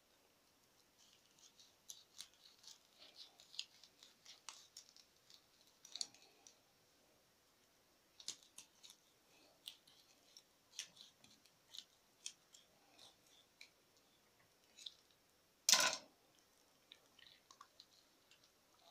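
Knife blade slicing along a whole raw fish's back and backbone on a granite cutting board: faint, irregular crisp scraping and clicking strokes. Near the end comes a single sharp knock, much louder than the rest.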